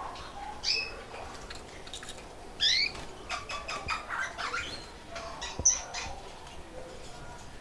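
Canaries chirping and calling in short, quick notes, some rising and falling, with a run of sharp clicks in the middle and one loud, high chirp near the end.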